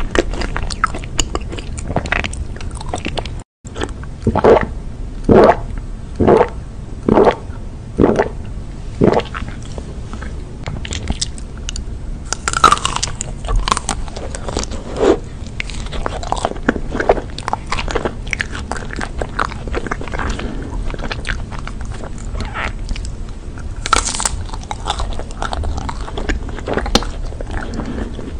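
Close-miked biting and chewing of chocolate desserts. It starts with a run of loud crunchy bites about one a second, then goes on to softer bites through a chocolate-coated ice cream bar with chewing in between.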